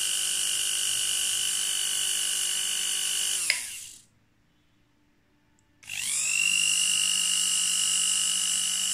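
Handheld angle grinder's 220 V AC brushed motor running unloaded at full speed with a high whine, making a rough sound. About three and a half seconds in there is a click as it is switched off and it winds down to silence; about two seconds later it is switched on again and spins back up to speed.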